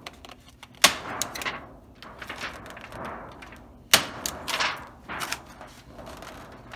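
A DeWalt staple gun firing staples through copper shielding sheet into the wood framing: two loud, sharp snaps about three seconds apart, with smaller clicks and the crinkle of the copper sheet being handled in between.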